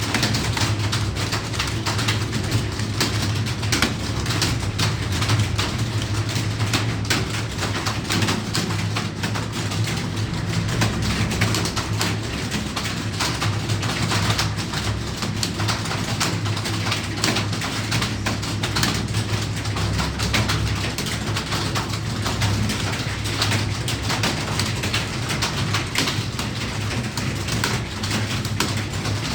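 Many computer keyboards clattering at once as a room of typists types continuously, a dense, even stream of key clicks over a steady low hum.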